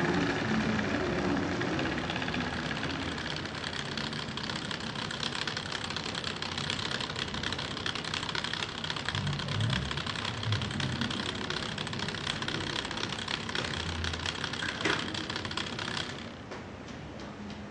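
N-scale model diesel locomotive running slowly on the track: its small electric motor and wheels make a steady, dense rattle of fine clicks. The sound drops away sharply about two seconds before the end.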